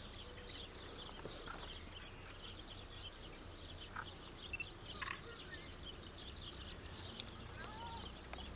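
Faint songbirds chirping and twittering in many quick short notes over a low steady hum, with a couple of brief faint clicks around the middle.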